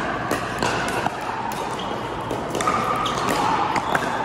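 Pickleball paddles striking a plastic pickleball, several sharp pops at irregular intervals from this and neighbouring courts, echoing in a large indoor hall.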